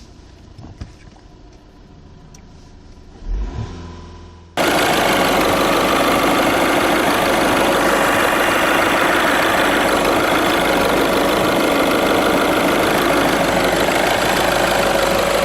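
VW Golf 6 engine started after a fuel filter change, running steadily at idle. A short low rumble comes about three and a half seconds in, and about a second later the sound jumps abruptly to a loud, steady running noise that holds to the end.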